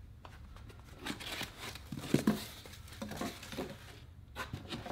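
Packaging being handled: a foam insert pulled out of a cardboard box, with rustling and scattered light knocks and one sharper knock a little over two seconds in.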